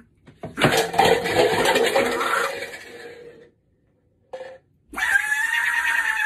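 A quacking Donald Duck-style voice squawking in two outbursts: a long noisy one through the first half, then after a short pause a shorter held squawk near the end.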